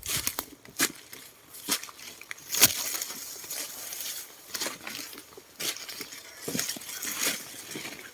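Footsteps crunching through dry leaves and forest undergrowth: irregular crackles and rustles with a few sharper snaps.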